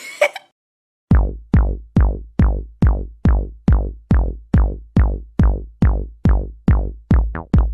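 Electronic music: a drum-machine kick beat of deep hits falling in pitch, about two a second, starting about a second in, with a quick run of hits near the end.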